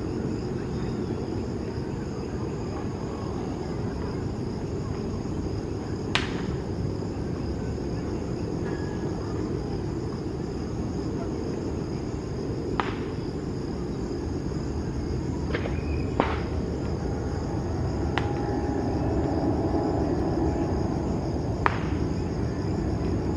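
Insects chirring steadily at a high pitch over a low, steady rumble, with a handful of sharp clicks every few seconds; the rumble grows slightly louder near the end.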